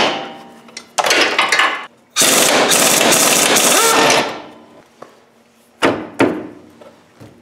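Pneumatic impact wrench hammering in short bursts, then one longer burst of about two seconds, as it runs the 19 mm bolts off the lower control arm of a Kubota RTV 900. Two sharp metal knocks follow near the end.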